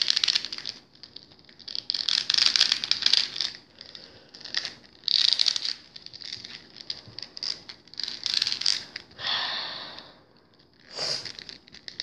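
Plastic action-figure parts rustling and scraping in irregular bursts of about a second each. A Master Chief figure is being forced into a tight-fitting piece that it won't go into easily.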